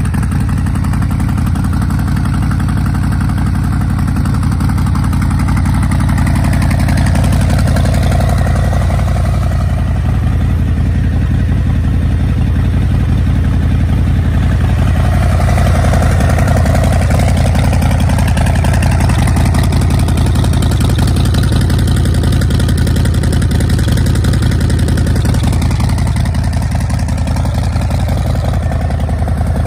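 Harley-Davidson Breakout's Milwaukee-Eight 114 V-twin idling in neutral through aftermarket swept dual exhaust pipes, a steady deep rumble.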